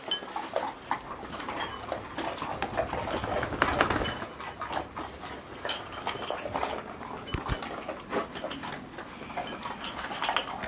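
Golden retriever puppies moving about and playing, with many short clicks and knocks and small clattering sounds.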